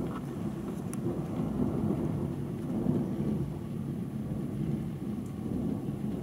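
Continuous rolling thunder that rumbles on without a break, swelling and easing but never dying away, from a thunderstorm of several close cells.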